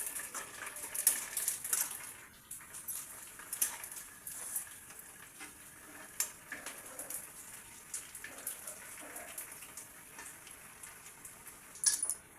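A spoon clicking and scraping against a pan while stirring spiced vegetables frying in oil, over a light sizzle. The clicks come thick for the first two seconds, then sparser, with a short flurry near the end.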